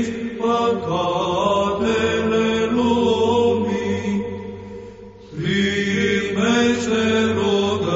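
Orthodox Byzantine chant: voices singing a slow, ornamented line over a steady held drone note, with a short breath pause about five seconds in.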